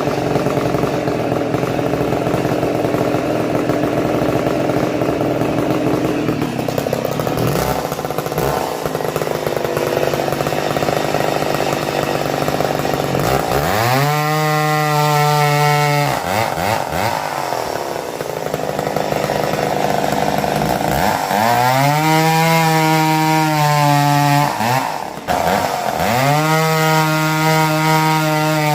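Vintage McCulloch 7-10 Automatic two-stroke chainsaw cutting small wood: for the first dozen seconds the engine runs at a lower, rougher note under the load of the cut. It then revs up high and clean three times, dropping back in between.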